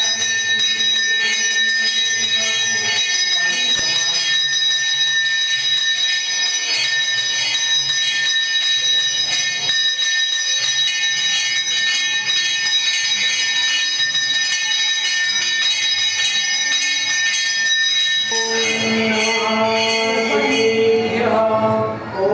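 A temple puja bell rung rapidly and without pause, a steady metallic ringing, during the worship of the idol. About three quarters of the way through the ringing gives way to voices chanting.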